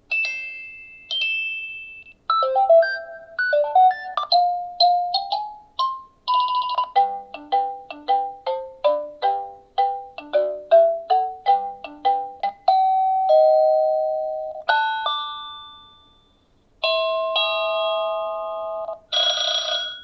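Wyze Chime plug-in doorbell speaker playing its built-in tunes one after another: short electronic chime melodies, a quick run of many bright notes in the middle, then held two-note ding-dong doorbell tones near the end, with brief gaps between tunes.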